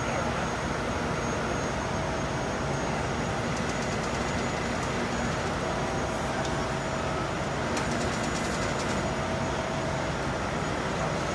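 Heavy-duty truck's diesel engine running steadily, with a faint whine that comes and goes and a few light metallic ticks.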